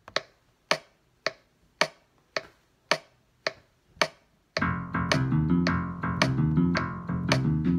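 A metronome clicking steadily, a little under two clicks a second, eight clicks alone as a count-in. About four and a half seconds in, a piano comes in, playing in time over the clicks, which carry on.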